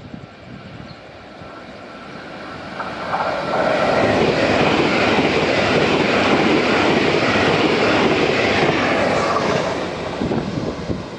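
Train passing at high speed: the noise builds over a few seconds, stays loud for about five seconds as the train rushes by, then slowly fades.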